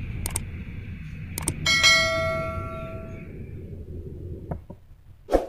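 Subscribe-button animation sound effect: two clicks, then a bell ding that rings out for about a second and a half. Underneath, the low rumble of a passing freight train fades away, and a sharp thump comes near the end.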